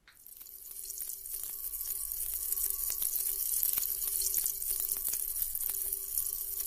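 Steady rush of running water that starts suddenly and swells over the first second, with a faint steady hum underneath.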